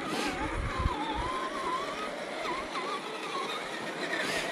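Electric motor and gearbox of a 1/10-scale RC crawler truck whining, the pitch wavering up and down with the throttle as it creeps along.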